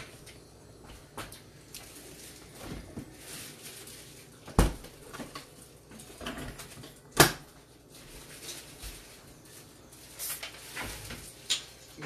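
Kitchen clatter: two sharp knocks about two and a half seconds apart, with lighter clicks and knocks between them.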